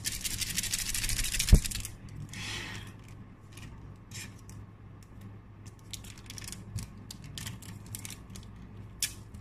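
Foil wrapper of a Match Attax trading card pack crinkling as it is torn open, with one sharp thump about a second and a half in. After that, faint scattered clicks and rustles of the cards being handled and flicked through.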